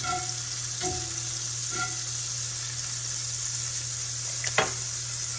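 Butter melting and sizzling in a very hot skillet, a steady hiss, with a sharp clink of metal tongs against the pan about four and a half seconds in.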